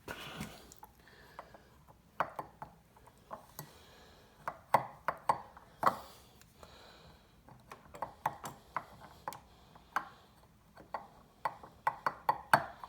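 Irregular small clicks and taps of a pick tool and fingers working at a turn signal's plastic wiring connector and clips behind the light, as it is worked loose blind.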